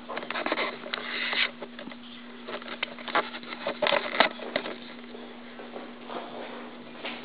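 Kitten's paws and claws scuffling and tapping on a hardwood floor while it plays with a toy mouse, in irregular clusters of light clicks and scrapes. A steady low hum runs underneath.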